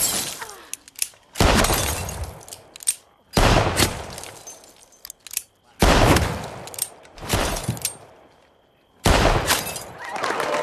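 Revolver fired five times in slow succession, about two seconds apart, each shot ringing out with a long echoing tail, with lighter clicks between the shots.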